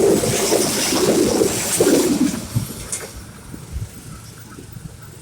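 A train passing over a railway level crossing: loud rumbling with surges, which drops away sharply about two and a half seconds in as it passes, leaving a much quieter background.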